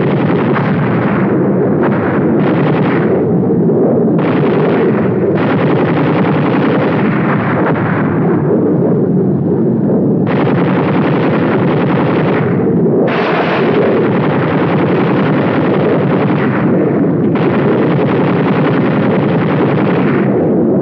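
Loud, continuous battle sound of gunfire and explosions, coming in long bursts of one to several seconds over a steady rumble.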